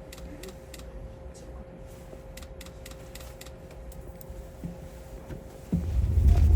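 Hakone Tozan Railway electric train standing at a switchback signal station: a quiet low hum with a faint steady tone and scattered light clicks. Near the end a loud low rumble sets in suddenly and keeps rising as the train moves off.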